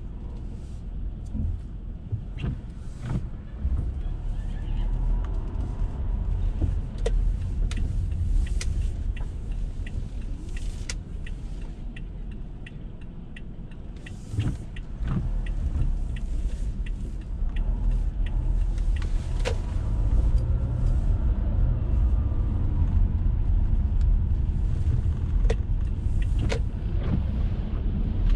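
Car driving on wet city streets: a low, steady road rumble that grows louder about two-thirds of the way through, with scattered sharp ticks over it.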